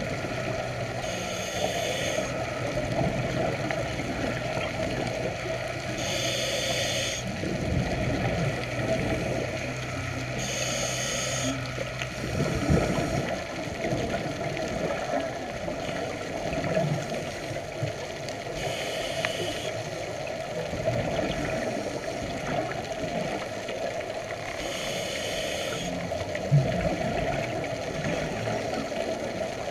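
Scuba regulator breathing underwater: about six hissy breaths of about a second each, roughly every four to eight seconds, over a steady low underwater drone.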